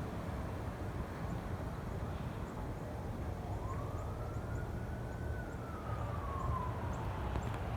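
A faint distant siren: one slow wail that rises from about three seconds in and falls away over about four seconds, over a steady low outdoor rumble.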